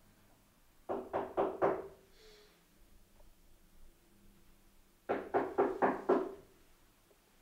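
Knuckles rapping on a door in two bouts of quick knocks, about four a second, the second bout coming a few seconds after the first.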